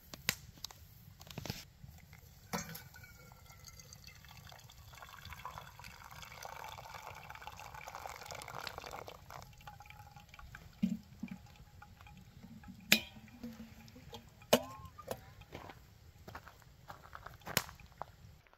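Water poured from a stainless steel kettle onto ground coffee in a camp coffee maker, a steady pour lasting several seconds around the middle. Later come a few sharp metal clinks as the kettle is handled and set down.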